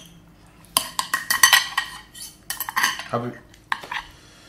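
Metal knife and fork clinking and scraping on a ceramic plate while cutting chicken, in irregular clusters of sharp clicks.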